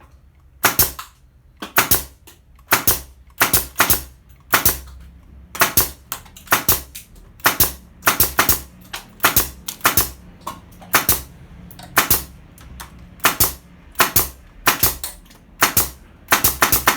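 Makute pneumatic nail gun firing nails in rapid succession, one to two sharp double cracks a second, about two dozen shots, until the magazine is emptied. A faint low hum runs underneath.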